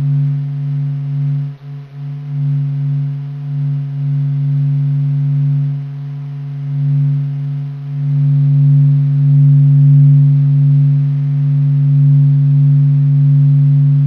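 The 'sound of the Sun', solar data translated into audible sound: a deep, steady droning hum with a few fainter higher overtones. Its loudness swells and ebbs slowly and grows louder about halfway through.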